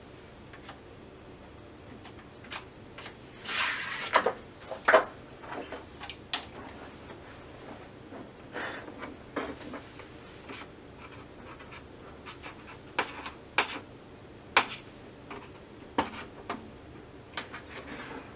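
Large thin plastic diffuser and optical sheets of an LED TV backlight being lifted and flexed by hand: scattered rustling and sharp crackles and clicks, with a longer rustle a few seconds in and the loudest crack soon after.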